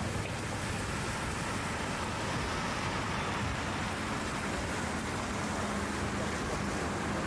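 City street traffic: a steady rush of passing vehicles, with a low engine hum coming in about halfway through.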